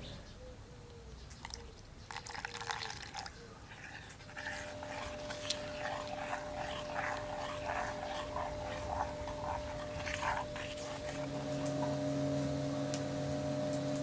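Dark liquid pours from a glass carafe for the first few seconds. Then a wooden spoon stirs thick peanut sauce in a stone mortar, making repeated wet squelching strokes about twice a second over a low steady hum.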